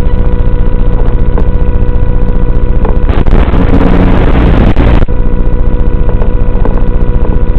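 The electric motor and propeller of a small FPV flying wing running steadily in flight, with a steady whine. For about two seconds in the middle a louder rush of air noise rises over it.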